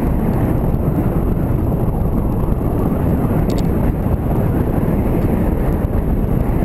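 Motorcycle riding over a cobbled street: a steady rumble of wind buffeting the microphone together with engine and tyre noise.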